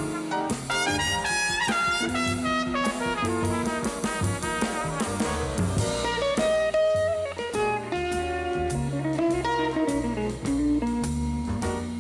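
Jazz ensemble playing a bluesy tune: a brass horn solo in fast melodic runs over a drum kit with cymbals and an upright bass line, with electric guitar also heard.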